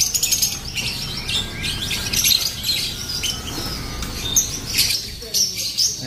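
A crowded cage of canaries chirping in quick, overlapping high calls, with wings fluttering as the birds move about the cage.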